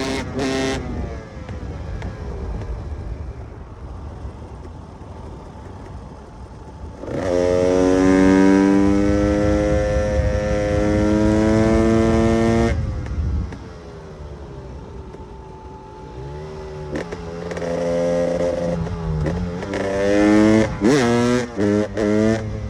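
KTM EXC 300 single-cylinder two-stroke enduro engine revving: a few quick blips at first, a quieter stretch, then a loud pull held at high revs for about five seconds that cuts off sharply. Near the end the revs climb again in several quick blips.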